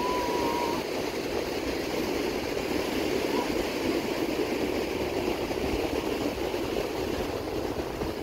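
Steady roar of ocean surf breaking on a sandy beach, with wind rumbling on the microphone. A short steady whistle-like tone sounds in the first second.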